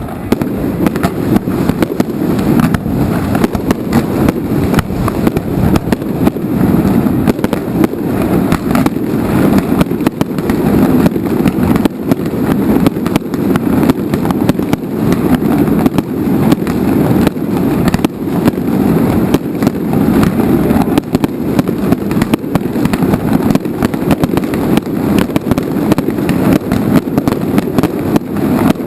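Aerial fireworks going off in a dense, continuous barrage: many overlapping bangs and crackles each second over a steady low rumble of booms.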